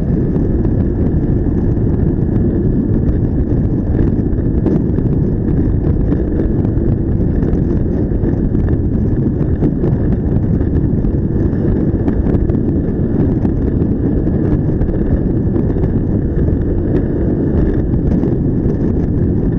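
Steady wind buffeting on the microphone of a camera riding on a moving vehicle, a loud low rumble with vehicle engine and road noise underneath.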